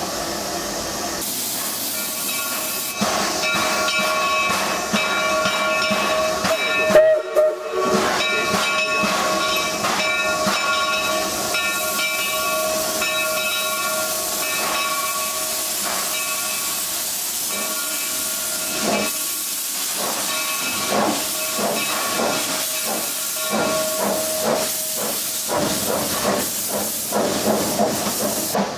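Baldwin steam locomotive hissing steam, with a steady whistling tone over the hiss for most of the time. There is a sharp loud knock about seven seconds in, and repeated exhaust beats in the later part.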